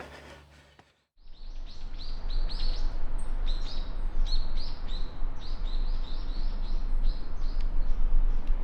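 Small birds chirping: many short, arching high notes repeated a few times a second, starting about a second in, over a steady low rumble.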